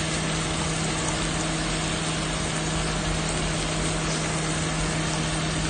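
Onion, tomato and chilies frying in oil in a pan with spice powder on top, a steady sizzle, over a constant low mechanical hum.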